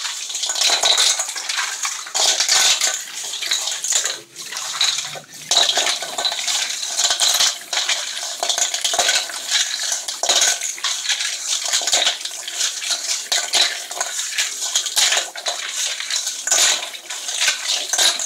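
Wet stones clattering and knocking against a stainless steel colander as they are rubbed and turned by hand under a running kitchen tap, with the water splashing through.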